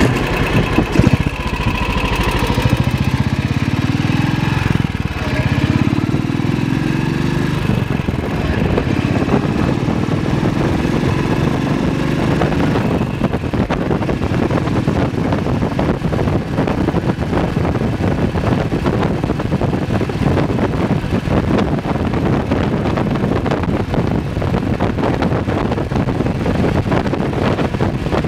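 BSA WM20's single-cylinder side-valve engine running under way: it picks up speed a few seconds in, its pitch rising, then runs steadily at road speed, with wind noise on the microphone growing from about halfway.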